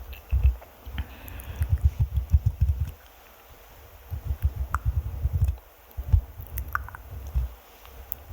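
Fingers scratching and rubbing directly on a microphone, heard as quick low rubbing thuds in bursts of a second or two, with short pauses between bursts.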